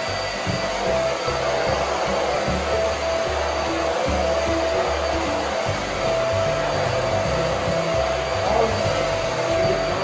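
Vacuum cleaner motor running steadily as a stick vacuum is pushed over a rug, with background music and its bassline underneath.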